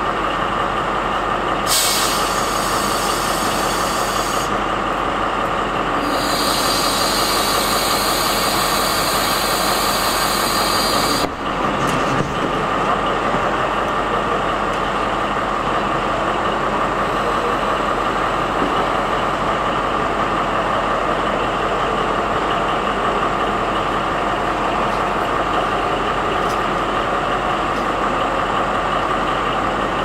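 DB class 218 diesel locomotive's MTU 4000 engine idling steadily at a standstill. A loud hiss of compressed air joins it about two seconds in, drops out briefly, and cuts off suddenly about eleven seconds in.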